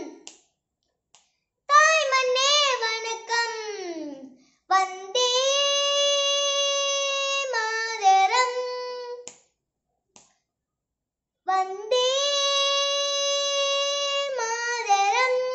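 A young boy singing a patriotic song unaccompanied, in phrases with long held notes and sliding ornaments, broken by short silent breaths between phrases.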